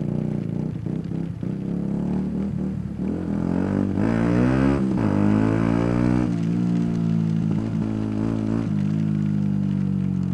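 Yamaha YZF-R125's 125 cc single-cylinder engine running under way. The revs rise and fall about four seconds in, then settle to a steady note.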